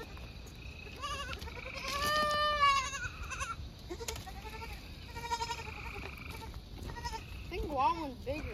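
Goats bleating several times, the loudest a long wavering bleat about two seconds in, with shorter bleats after it and a couple more near the end.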